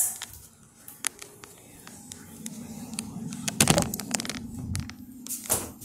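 Quiet handling noise: scattered clicks and short rustles, with a few louder knocks past the middle, over a faint low hum.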